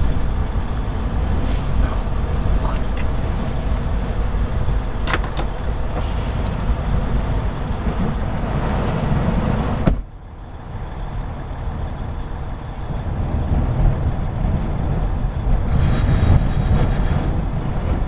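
Strong gusting wind rushing and rumbling heavily, low and loud. It drops off suddenly about ten seconds in, then builds back up.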